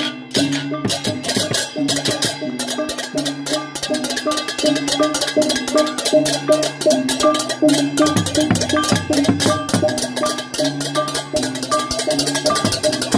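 Balinese processional gamelan accompanying a barong: a fast, unbroken clatter of clashing hand cymbals (ceng-ceng) over ringing bronze kettle gongs and deep gong notes.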